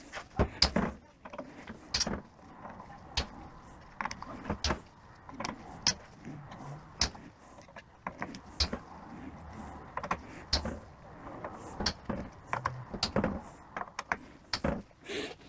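Irregular metallic clicks and clinks of hand tools and small transmission valve body parts being handled and set down, a few sharp knocks a second.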